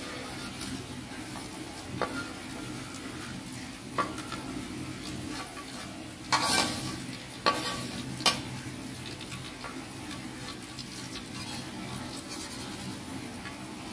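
Food sizzling in a frying pan while being stirred, with a utensil knocking against the pan about five times in the first nine seconds; the loudest is a brief scrape about six seconds in.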